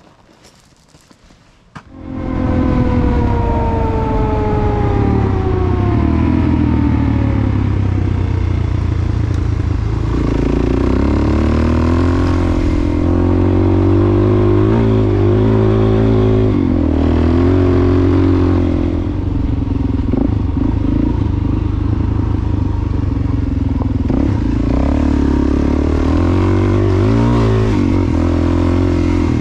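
Single-cylinder dual-sport motorcycle engine running under way on a dirt road, rising and falling in pitch with throttle and gear changes. It cuts in loudly about two seconds in, and its pitch slides down over the next few seconds.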